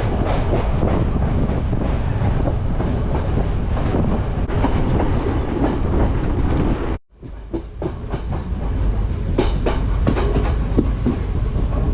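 Passenger train running on the rails: a steady low rumble with the clatter of wheels over the track. The sound drops out for a moment about seven seconds in, then resumes.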